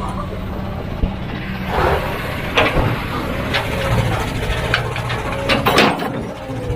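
Heavy machine's diesel engine running steadily, with several sharp knocks and clanks over it, the loudest pair near the end.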